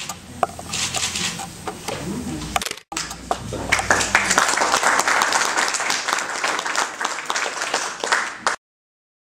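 Audience applauding, starting about three seconds in and cutting off abruptly near the end. Before the applause, murmured voices and a few scattered claps.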